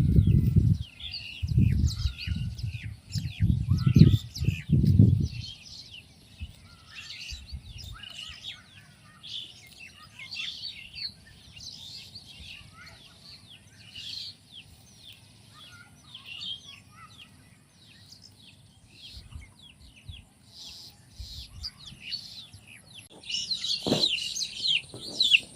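Many small birds chirping, rapid short high calls overlapping one another, growing denser and louder near the end. Loud low rumbles come and go during the first five seconds, over a faint steady high hiss.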